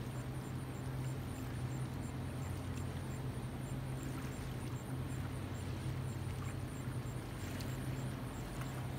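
Steady low drone of a boat engine running at an even speed, with faint high ticking a few times a second above it.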